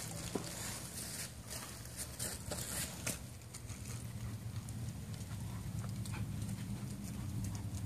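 German Shepherds' paws pattering and claws clicking as the dogs move about, with scattered light clicks that are thickest in the first few seconds, over a low steady rumble.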